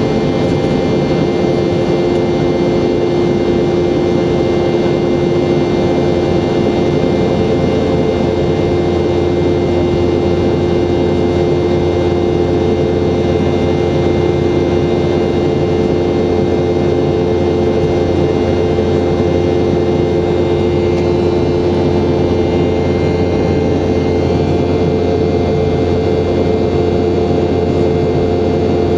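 Boeing 717's Rolls-Royce BR715 turbofan engines running steadily in flight: a constant jet drone with a steady hum of several pitched tones that does not rise or fall.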